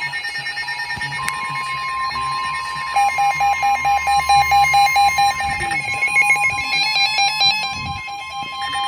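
NOAA weather radios sounding their warning alert: a steady alarm tone near 1 kHz, with a second radio's rapid on-off beeping, about four beeps a second, joining about three seconds in. The alert announces a Severe Thunderstorm Warning.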